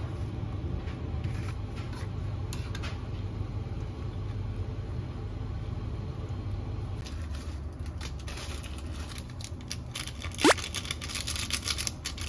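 Leafy greens being stirred in a stone-coated pot with wooden chopsticks: light rustling and scraping over a steady low hum, with one short, sharp rising squeak about ten seconds in.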